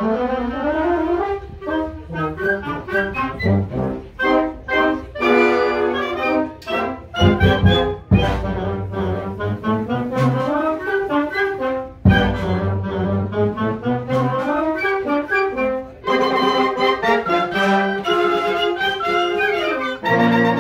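Live concert band playing: clarinets and other woodwinds together with brass, in rising and falling runs. There are a few heavy low beats about seven to eight seconds in and again at twelve.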